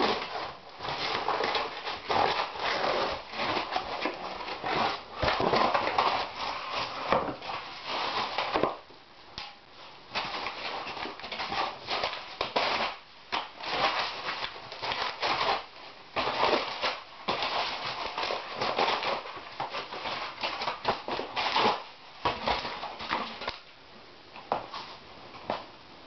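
Irregular bursts of rustling, crackling noise from a smoking wood-fired boiler being fanned with a flat board, with a quieter gap about nine seconds in.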